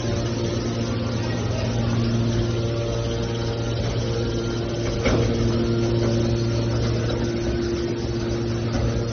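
Hydraulic scrap-metal baler running with a steady hum, with a single clank about five seconds in.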